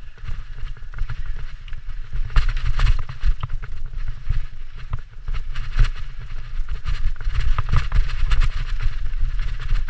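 Mountain bike riding fast down a dirt singletrack: the tyres run over dirt and leaves and the bike rattles with many sharp, irregular knocks over bumps, over a steady heavy low rumble of wind on the microphone.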